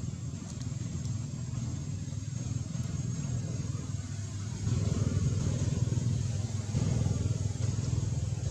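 Low, continuous rumble of a motor vehicle engine running nearby, growing louder about halfway through, with a faint steady high-pitched tone above it.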